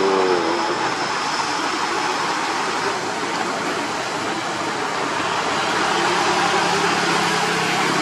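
Heavy diesel trucks labouring up a steep grade under load, with other traffic passing on the wet road. A low engine drone grows louder in the second half.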